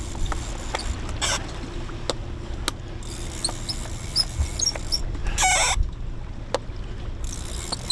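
Steady rush of wind and water around a moving sailboat as a heavy rod and reel are worked to bring in a hooked fish. There are scattered sharp clicks, a run of short high squeaks about halfway through, and a brief squeal a little later.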